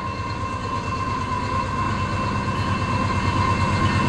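Canadian Pacific freight train approaching, its lead diesel locomotive's low rumble growing steadily louder, with a steady high tone running through it.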